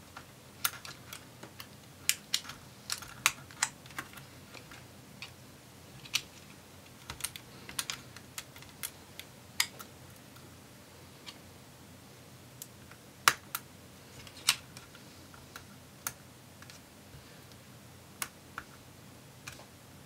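Irregular small sharp clicks and taps of fingers working on a laptop's WiFi card, as the two antenna leads are clipped back onto its connectors and their cables pressed into place; the loudest snaps come a little past the middle.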